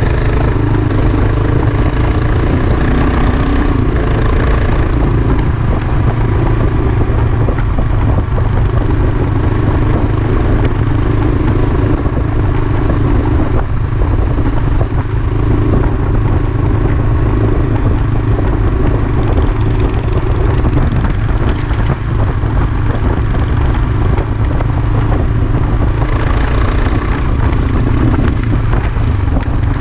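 Dual-sport motorcycle running steadily at road speed, its engine note under a heavy, constant low wind rumble on the microphone.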